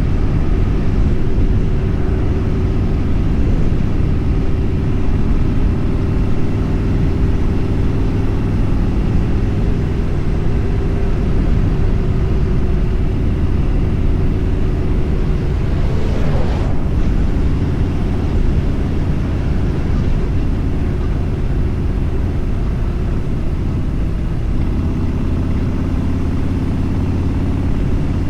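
Motorcycle running steadily at highway speed, with heavy wind rush over the microphone. There is a brief whoosh about sixteen seconds in.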